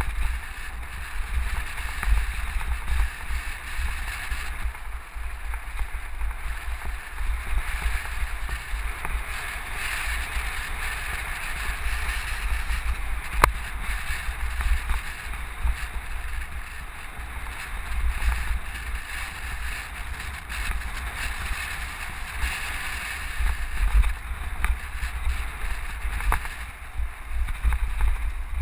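Riding noise from a bicycle on a dirt road: wind buffeting the microphone in a low, uneven rumble, over a steady hiss of tyres rolling on dirt and gravel. One sharp click about halfway through.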